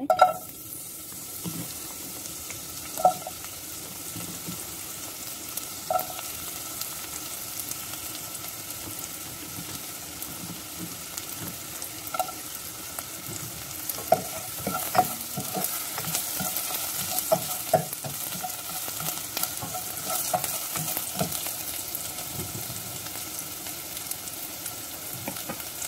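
Sliced garlic sizzling in hot cooking oil in a nonstick pot, the sizzle starting as the garlic goes in. A utensil knocks and scrapes against the pot now and then as the garlic is stirred, more often in the second half.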